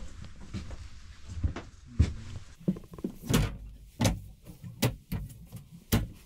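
Travel trailer cabinet and closet doors being opened and shut by hand: a series of knocks and clicks, about half a dozen, spaced through the stretch.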